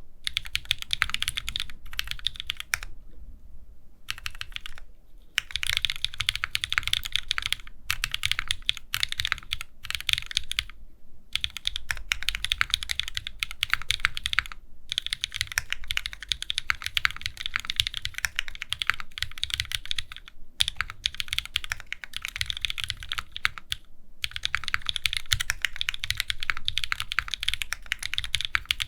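Fast typing on a Wilba.Tech Salvation custom mechanical keyboard, a tray-case board with a spring leaf mount: a rapid, continuous clatter of keystrokes broken by a few short pauses.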